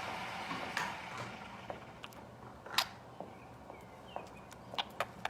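A ringneck parrot playing: a series of sharp clicks and taps, several in quick succession near the end, with one faint short squeak about four seconds in.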